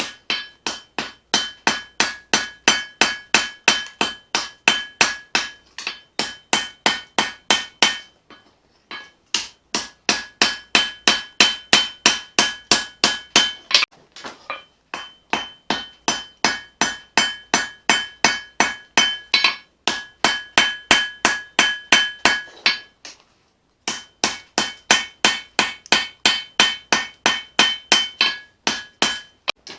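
Hand hammer striking hot leaf-spring steel on an anvil, about three to four blows a second, with the anvil ringing at a steady pitch under the strikes. The blows come in four runs with brief pauses between them.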